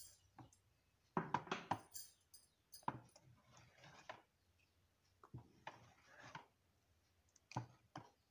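A wooden-handled ladle stirring thick payasam in an earthenware clay pot, scraping and knocking against the pot in a series of short bursts.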